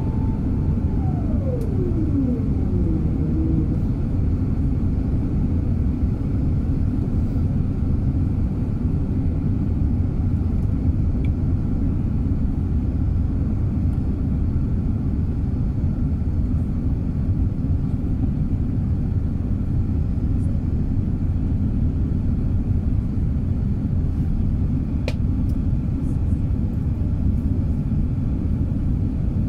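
Steady low cabin rumble of an Airbus A380 in descent, heard inside the cabin. In the first few seconds an engine whine from its Rolls-Royce Trent 900 engines falls steadily in pitch as they spool down.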